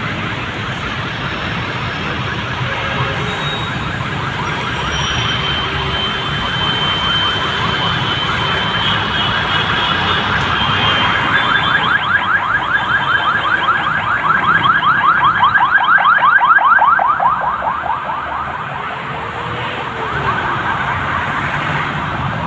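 Steady road traffic noise, with an electronic alarm warbling in fast, rapidly repeating rising sweeps that grows louder through the middle, is loudest about three-quarters of the way in, then fades out.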